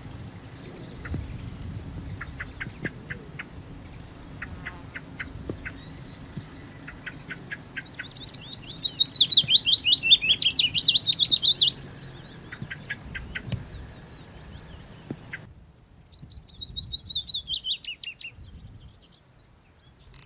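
Willow warbler singing: two phrases of sweet notes that run down the scale, the first about eight seconds in and lasting some four seconds, the second shorter, near the end. Faint short chips sound in the first half, over a low background rumble that drops away partway through.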